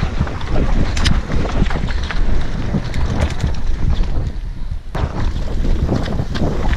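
Wind buffeting a helmet-mounted action camera on a fast mountain-bike descent, over tyres rolling across dirt and rock and frequent sharp knocks and rattles from the bike.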